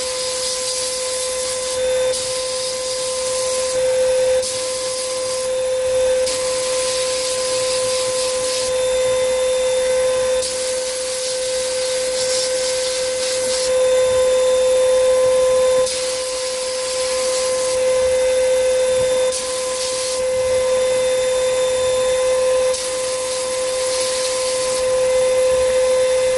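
Sandblasting cabinet's blast gun hissing in repeated bursts of one to three seconds as the trigger is pulled and released, blasting iron oxide media at 90 psi against rusted steel. A steady hum runs underneath.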